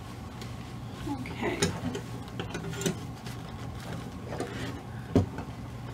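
Handling noise from dressing a ball-jointed doll: a fabric gown rustling, with small clicks and knocks and one sharper knock about five seconds in, over a steady low hum.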